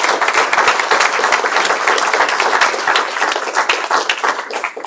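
Audience applauding: a dense run of many hand claps that starts to thin out near the end.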